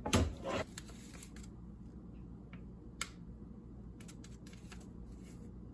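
A foam bowl set down on a kitchen scale with a couple of soft knocks, then a sharp click and a few light clicks and taps as powdered pudding mix is added to the bowl.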